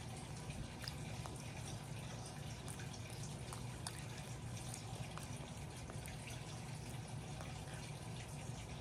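Faint, scattered wet clicks of a baby rhesus macaque smacking and sucking its lips, over a steady low hum.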